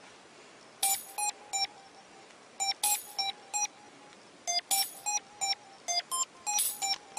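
Short electronic bleeps in quick groups. Most are on one pitch, with a few notes a step lower or higher, forming a simple synth figure.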